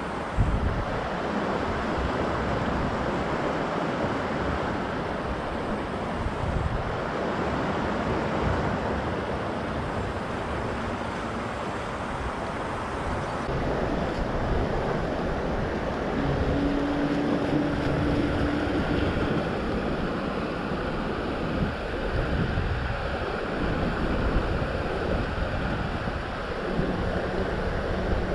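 Wind buffeting the microphone over the steady wash of waves on open water. A short steady hum lasts about two seconds just past the middle, and another briefly near the end.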